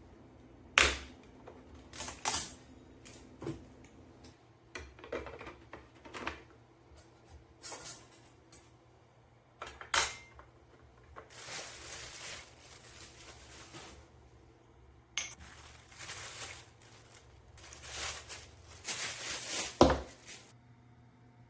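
Kitchenware being handled around an espresso machine: a scattered series of sharp clinks, clicks and knocks, with three short spells of hissing about halfway through and near the end.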